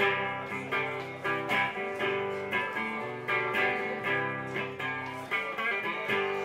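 A live band playing an instrumental passage between vocal lines: electric guitar strumming rhythmic chords over a keyboard.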